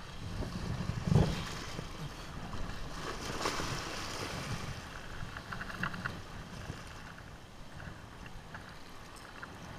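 Small sea waves washing and foaming around the shore rocks at the angler's feet, with wind rumbling on the microphone; the wash swells louder about three to four seconds in, and there is one dull thump about a second in.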